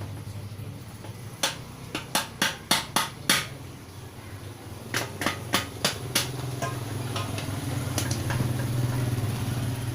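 Hammer blows on metal: a quick run of about seven strikes, then about five more a couple of seconds later, over a steady low hum.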